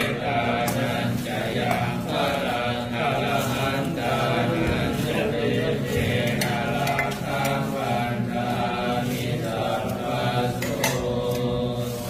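Buddhist devotional chanting: voices reciting a vandana in a steady, drawn-out chant.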